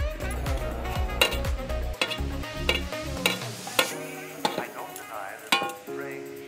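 Aluminium pot lid clinking and scraping against the rim of the pot as it is lifted off and set back on, a handful of sharp clinks spread through the few seconds.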